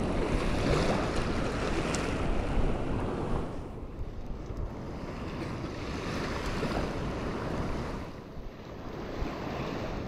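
Surf washing at the water's edge with wind buffeting the microphone; the wash swells and eases, loudest over the first few seconds and falling away about four seconds in and again near the end.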